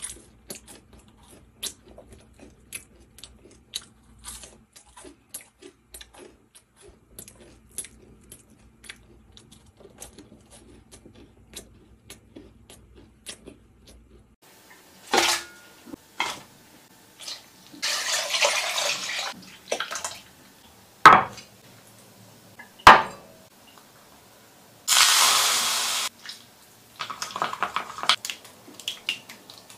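Faint, crisp chewing of pan-fried potato cubes, a click or two every second. After the halfway point come kitchen sounds: several sharp knocks of utensils and two rushing bursts of a second or two each. Near the end, chopsticks clink quickly against a glass bowl as they stir a chili sauce.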